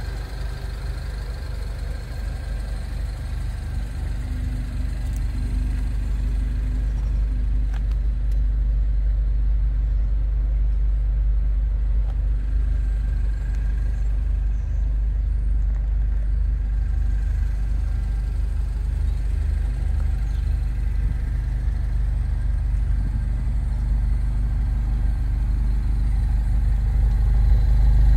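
A 2010 Mini John Cooper Works' turbocharged 1.6-litre four-cylinder idling steadily, still cold after a cold start. The idle grows louder near the end as it is heard at the twin centre exhaust tips.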